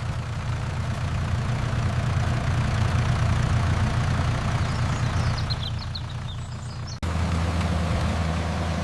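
Combine harvester engine running with a steady low rumble. About seven seconds in it cuts abruptly to a different, smoother engine sound. A few faint high chirps are heard shortly before the cut.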